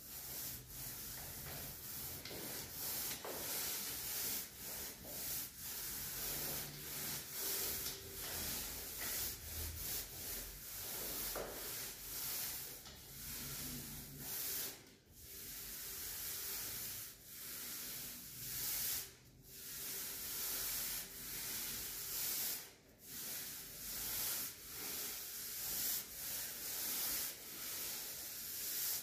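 Paint roller on an extension pole rolling paint onto a wall: a steady hiss in repeated strokes, broken by brief pauses a few times.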